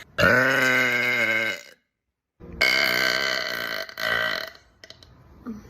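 A woman burping twice: a long belch of about a second and a half, then, after a short silence, a second long belch of about the same length that trails off in a few short bits.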